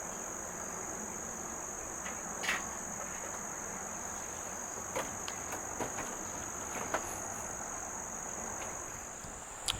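Steady high-pitched chirring of crickets, with a few faint, scattered clicks.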